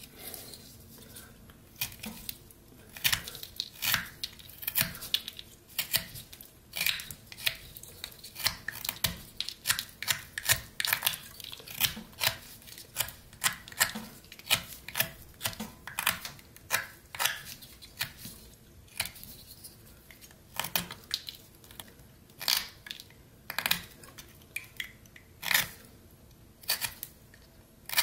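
Pocket knife blade cutting pine: a run of short, crisp slicing strokes as shavings are whittled off, coming in clusters with brief pauses.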